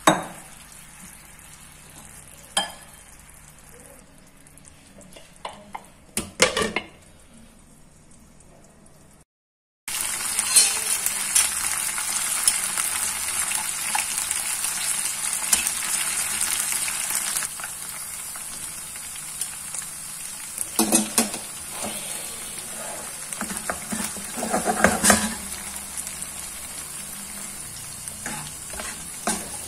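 Chicken pieces in marinade being stirred in a nonstick frying pan with a silicone spatula, with a few knocks against the pan. After a brief cut to silence about nine seconds in, the chicken sizzles loudly as it fries in oil and is turned with metal tongs that clink against the pan now and then.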